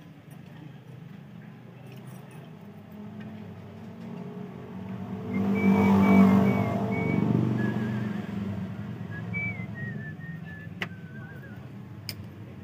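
A motor vehicle passing by, swelling to its loudest about six seconds in and then fading, over a steady low hum. In the second half someone whistles a tune.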